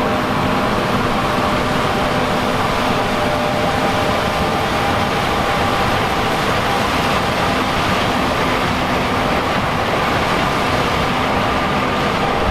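Heavy diesel farm machinery running steadily under load, a dense mechanical noise with several steady whining tones over it.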